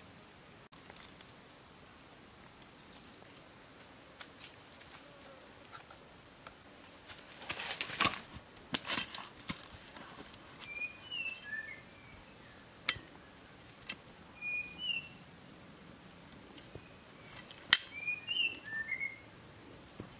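A broad-bladed knife scraping and knocking against stony soil while digging, with a longer stretch of scraping about eight seconds in and a few sharp knocks later on. Short bird chirps come several times in the background.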